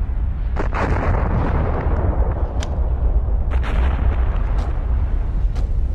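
Volcanic eruption blasts: a deep, continuous rumble with sharp cracks and bangs about once a second.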